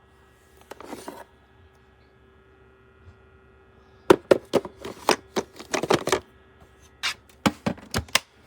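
A quick run of sharp knocks and clatters of objects being handled, in two groups about four and seven seconds in, after a short rustle about a second in, over a faint steady hum.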